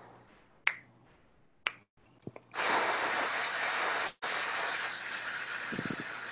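Two finger snaps about a second apart, counting beats, then a loud, forceful hiss of breath blown out hard through clenched teeth, with a brief break about four seconds in before the hiss goes on and slowly tails off: a breathing exercise emptying the lungs as fast as possible.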